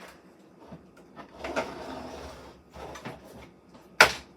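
Handling noise: a scraping, sliding rustle starting about one and a half seconds in, then a single sharp knock near the end.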